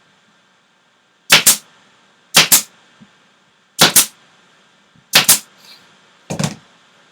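Pneumatic staple gun firing five times into the valance mounting board, about a second apart, each shot a sharp double crack; the last is quieter.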